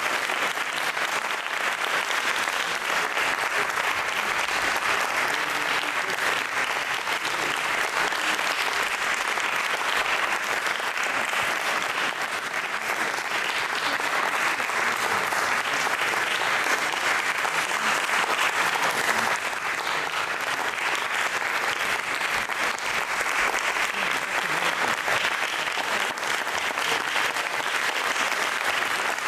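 Concert audience applauding steadily at the end of a performance, as the performers take their bows.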